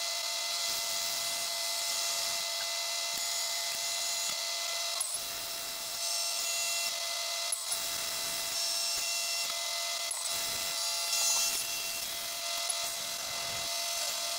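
CNC milling machine with its spindle running and an end mill cutting a metal plate: a steady whine with the hiss of cutting, and a few faint ticks.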